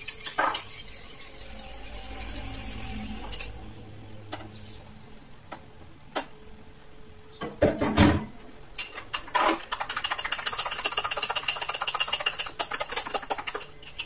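Metal spoon stirring a soapy liquid in a glass bowl, then a few separate knocks of glass and spoon, then fast, regular clinking of the spoon against a glass jar as the mixture is stirred briskly in the last few seconds.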